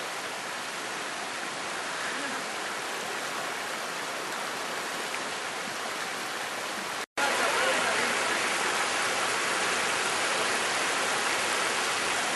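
Shallow river rushing over flat rock pools, a steady hiss of flowing water. The sound cuts out for a split second about seven seconds in and comes back a little louder.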